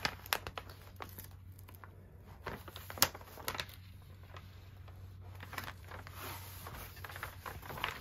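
Rustling and crinkling of a diamond painting canvas being unrolled and pressed flat by hand, its adhesive face sticking and peeling, with scattered crackles and a sharp click about three seconds in.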